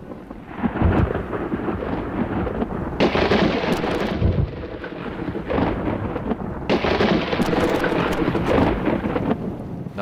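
Thunderstorm: rolling thunder with several loud surges, about a second in, at three seconds and near seven seconds, over a steady hiss of rain.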